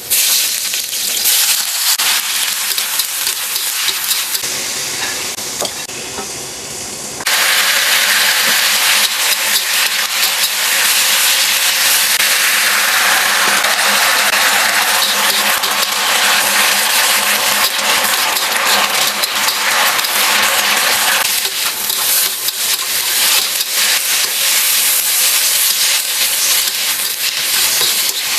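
Food frying in hot oil in a pan: a quieter sizzle at first, then about seven seconds in a sudden much louder sizzle, as when food is dropped into the oil, which keeps going steadily.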